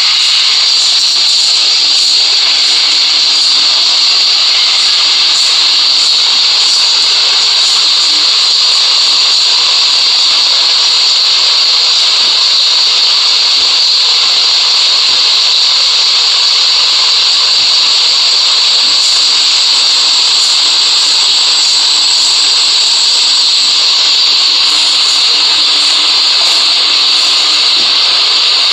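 GEMC 48-inch ceiling fan running at steady speed: a constant, loud airy hiss with a faint low hum under it.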